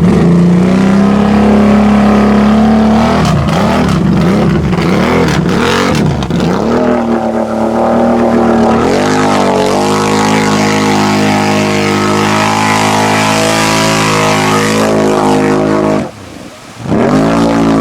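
ATV engine running hard at high revs in a mud bog, its pitch swinging up and down as the throttle is worked, then held high and steady with a spraying hiss. Near the end it cuts out briefly, then revs again.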